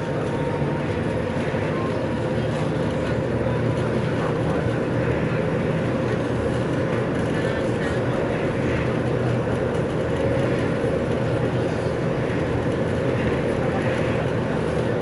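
Steady drone inside the passenger cabin of an Austal-built, KaMeWa water-jet high-speed ferry running at full sailing speed: engines and water jets with a low hum and a higher steady tone over a rush of water and hull noise.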